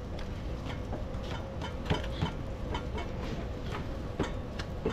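Open-air street food stall at work: a steady low rumble with a faint hum, and a few scattered light clicks and knocks from handling dough and pans at the gas griddle.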